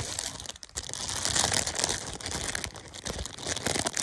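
Clear plastic wrapping crinkling and crackling continuously as it is squeezed and pulled open by hand.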